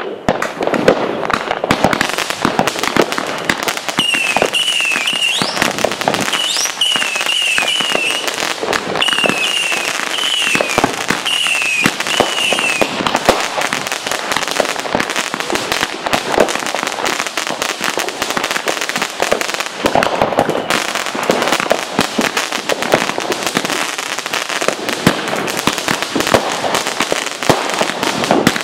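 Many fireworks going off at once: a dense, continuous crackle of firecrackers and bangs from exploding rockets. From about four to thirteen seconds in, a high warbling whistle repeats over and over, with a couple of rising whistles.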